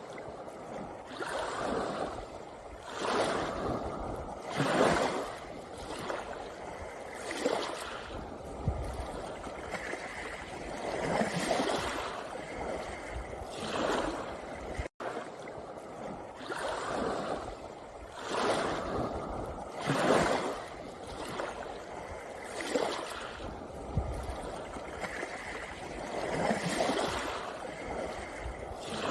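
Small waves washing in and out on a pebble beach, surging about every two seconds. There is a brief dropout about halfway through, where the recording loops.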